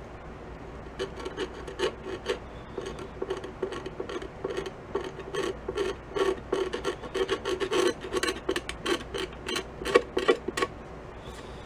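Razor blade in a holder scraping leftover white paint out of a seam in a 1936 Slingerland wooden snare drum shell, in a run of short, quick, uneven strokes that start about a second in and stop shortly before the end.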